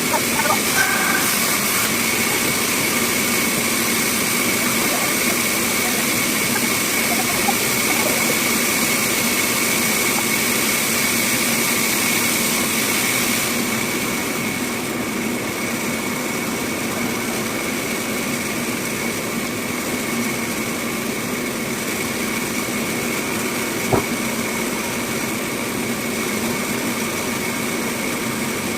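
Bandsaw running steadily with a constant whine, the machine sound changing slightly about halfway through; one sharp click near the end.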